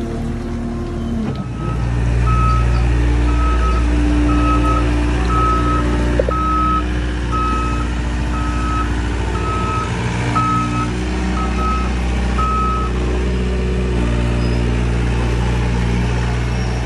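Hyundai Robex 60W-9S wheeled excavator's diesel engine running steadily while its travel alarm beeps about twice a second; the beeping starts about two seconds in and stops after about ten seconds, with the engine running on.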